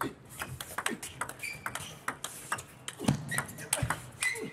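Table tennis rally: the celluloid-type plastic ball clicking off rubber-faced bats and the table in quick, irregular succession. The hardest hits come about three seconds in, with a few short squeaks between strokes.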